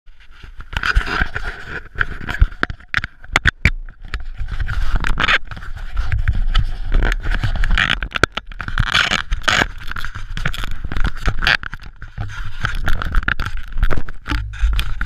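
Jeep CJ5 driving, heard from a camera mounted low by the rear suspension: a rumble of road and wind noise with frequent sharp, irregular knocks and rattles.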